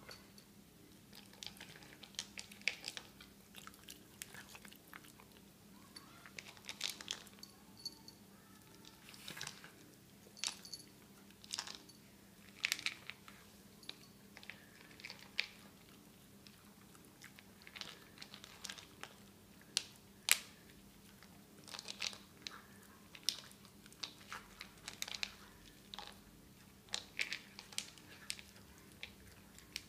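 Xoloitzcuintli dog eating from a plastic slow-feeder bowl: irregular crunching and chewing of dry kibble mixed with raw mince, with sharp clicks as it bites at the food.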